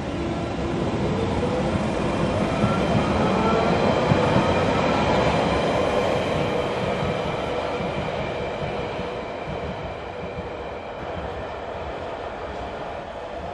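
London Underground 1992 stock train pulling out of the station, its traction motors giving a rising whine as it speeds up, with wheel-on-rail rumble. It is loudest about four seconds in as the last car passes, then fades as the train draws away.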